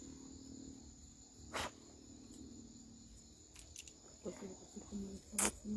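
Crickets trilling as a steady, faint high tone. There is a sharp click about one and a half seconds in, and a low voice is heard over the last second and a half.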